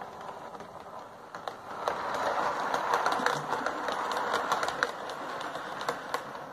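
Hornby Terrier OO gauge model steam locomotive running along the track with a coach in tow: a steady whirring hiss of motor and wheels with scattered small clicks, louder from about two seconds in.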